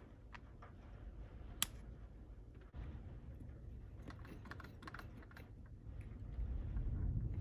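Small clicks and taps of a model steam locomotive being handled on a wooden desk, with a fine metal tool prodding at its smokebox door. One sharper click comes about a second and a half in, and a cluster of light clicks follows around four to five seconds in.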